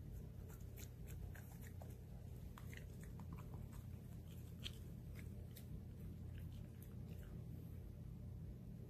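A small dog biting and chewing wheatgrass blades: irregular faint crunches and clicks, over a low steady hum.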